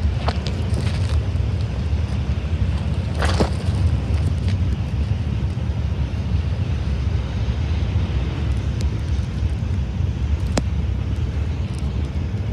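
Steady low rumble of a diesel-hauled freight train still far off down the line, mixed with wind on the microphone. There is a brief rustle about three seconds in and a faint click near the end.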